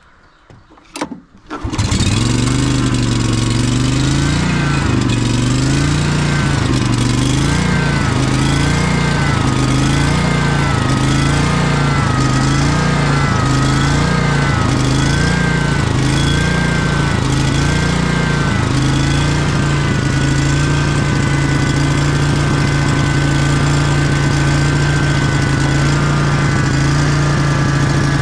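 Kawasaki FS481V V-twin engine on a walk-behind commercial mower starting up about two seconds in after a few clicks. It runs with its speed surging up and down about once a second, then settles to a steady run about two-thirds of the way through.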